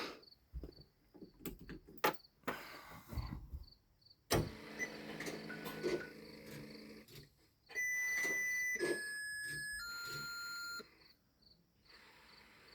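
A run of clicks and knocks, then a low hum, then three steady electronic beep tones about a second each, stepping down in pitch.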